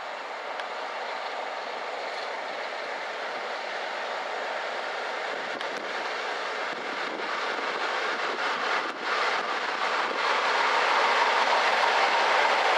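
Class 47 diesel locomotive and its train of coaches running slowly into a station, a steady rumble that grows louder as it draws near. A few clicks of the wheels over rail joints come about halfway through.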